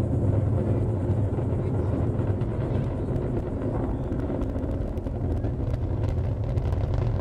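Falcon 9 rocket launch rumble heard from about three miles away: the steady, low roar of its nine Merlin 1D engines climbing away, with a faint crackle.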